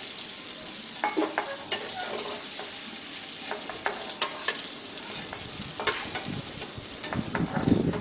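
Mustard oil sizzling steadily in an aluminium kadai while a metal spatula scrapes and clicks against the pan, lifting out the fried bitter gourd and raw banana pieces.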